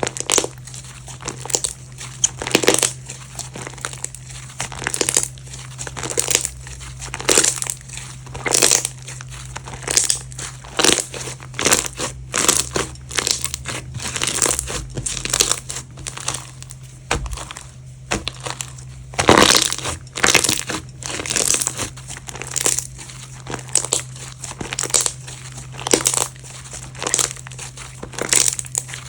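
Slime being squeezed and pressed by hand, making a run of short squishing, popping sounds about one or two a second, with a louder one about two-thirds of the way through, over a faint steady hum.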